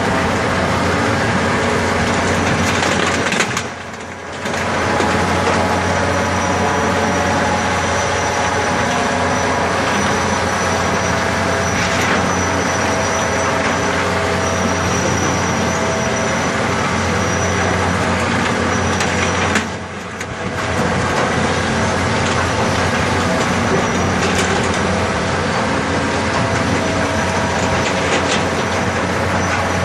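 Large digger's diesel engine running loudly and steadily, with scattered clanks; the sound dips briefly about four seconds in and again around twenty seconds.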